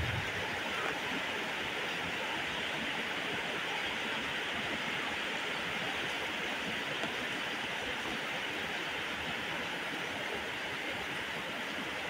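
Heavy rain pouring down in a steady, even rush.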